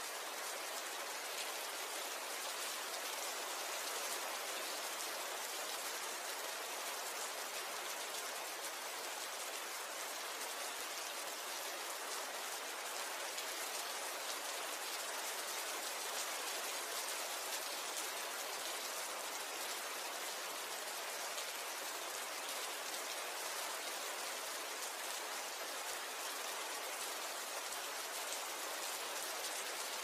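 Steady rain falling: an even, unbroken hiss of many fine drops, mostly high in pitch with little low rumble.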